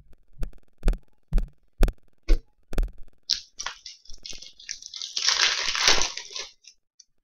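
Trading cards being handled: a run of sharp taps about two a second, then a few seconds of crinkling as a card pack's wrapper is worked open, loudest near the end.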